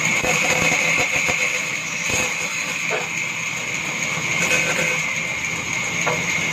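Band saw running and cutting through a wooden board, a steady high-pitched whine over the hiss of the blade in the wood.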